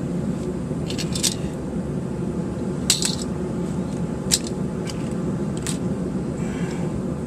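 Sharp clicks and clacks of small hard objects being handled and set down while the contents of a backpack are sorted, about five of them spread out, over a steady low hum.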